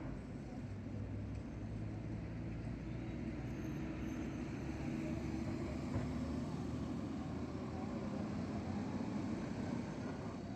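Vehicle noise: a steady low rumble that swells a little toward the middle and eases near the end.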